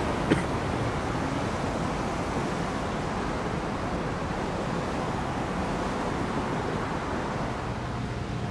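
Steady road traffic: cars driving across a railroad grade crossing, heard as tyre and engine noise, with one sharp knock about a third of a second in. Near the end the noise drops to a lower steady hum.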